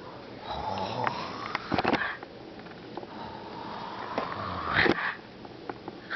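A toddler sneezing twice, about three seconds apart. Each sneeze is a breath rising in pitch that ends in a sharp burst.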